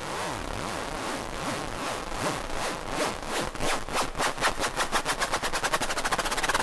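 Hard trance build-up: a percussive roll whose hits come faster and faster, speeding into a rapid rattle and growing louder toward the end, over swooping synth sweeps.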